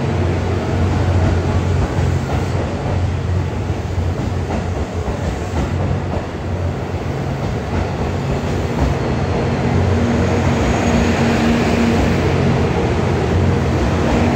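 Twilight Express Mizukaze, a JR West 87 series diesel-hybrid train, pulling slowly into a platform as it arrives: a steady low mechanical drone over the rumble of the cars rolling past.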